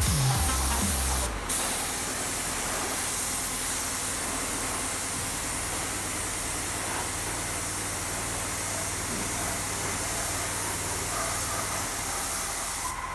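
Steady, even hissing spray running without a break; low music notes die away in the first second and a half.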